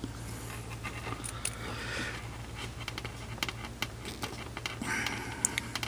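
Small plastic clicks and scrapes as a banana plug's cover is forced over the plug body, a stiff fit that will not slide on, with a couple of breathy exhales, over a steady low hum.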